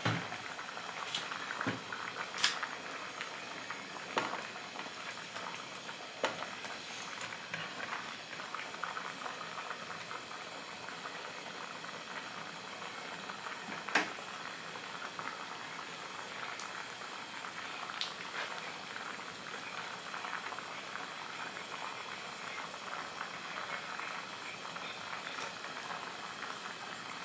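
Pot of crabs in coconut-water broth simmering, a steady bubbling hiss, with a few sharp clicks, the loudest about halfway through.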